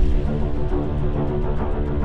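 Background music: sustained tones over a fast, steady ticking beat.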